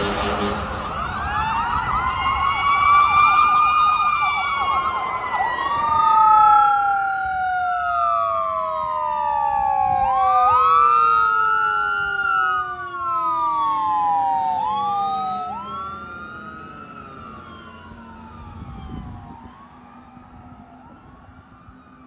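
Fire engine sirens, with the end of an air horn blast in the first moment. One siren climbs and then slowly falls in pitch over more than ten seconds. A second siren warbles fast, then swings up and down every two to three seconds. Both fade away over the last several seconds.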